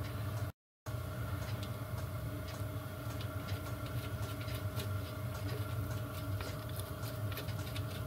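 Light metallic clicks and ticks of a brass dial, nut and handle being fitted and turned on a miniature lathe's cross-slide feed screw, over a steady hum. The sound drops out completely for a moment about half a second in.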